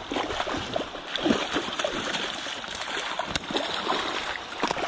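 Rushing river current, with small splashes as a landed king salmon is held and handled in the shallow water at the bank.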